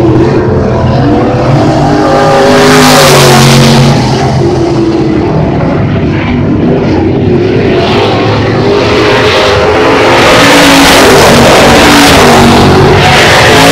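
Engines of IMCA Modified dirt-track race cars running at racing speed as the cars circle the track. The sound swells louder about three seconds in and again near the end as cars pass closer.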